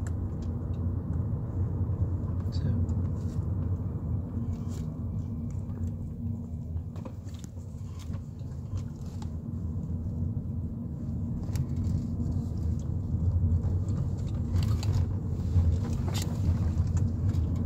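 Car driving, heard from inside the cabin: a steady low rumble of engine and tyre noise, with occasional light clicks.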